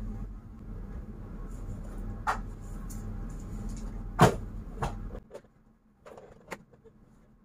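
Vacuum cleaner running with a steady low hum, with several knocks as the wand bumps the floor and furniture, the loudest about four seconds in. The motor sound cuts off a little after five seconds, leaving a couple of faint knocks.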